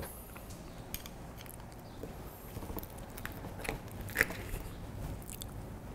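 Faint clicks and scrapes of an oyster knife working into the hinge of a raw oyster held in a towel, prying the shell open.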